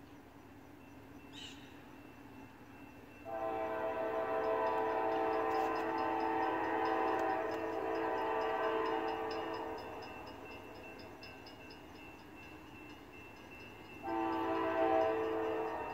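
Locomotive horn of Norfolk Southern AC44C6M NS 4047 blowing for a grade crossing: a multi-note chord held in one long blast of about six seconds, then after a pause a short blast near the end. A faint rapid ticking of the crossing bell runs underneath.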